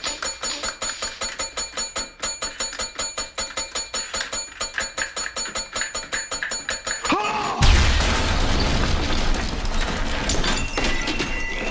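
A small brass bell rung over and over in rapid dings, about four or five a second, for some seven seconds. Then a bomb explosion, a sudden loud blast with a deep rumble and crumbling debris. About a second before the end a fire alarm starts beeping.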